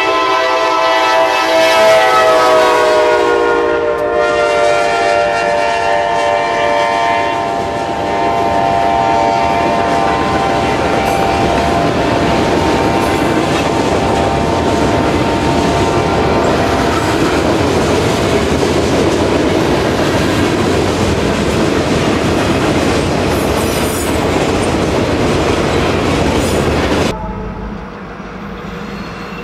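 Diesel freight locomotive's air horn blowing for a grade crossing, its pitch dropping as the locomotive passes, then the freight cars rolling by with wheels clicking over the rail joints. The sound cuts off suddenly near the end.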